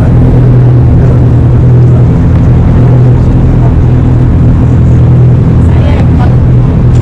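Tour boat's engine running steadily: a loud, even low hum that does not change.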